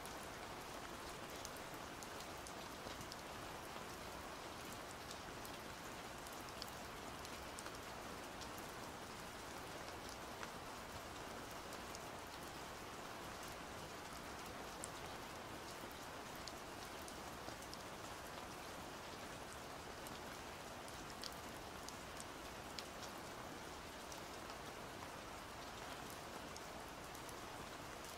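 Steady rain falling, an even wash with many small, scattered drop ticks.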